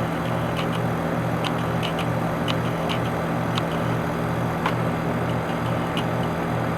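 Carrier Comfort Series 5-ton heat pump outdoor unit running in heating mode: a steady hum of its Copeland scroll compressor and condenser fan, with light, irregular ticks about once a second. Its outdoor coil is frozen up.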